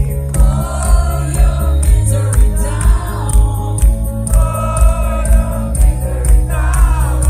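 Live rock band playing loudly, a woman singing the lead vocal over a steady drum beat and heavy bass.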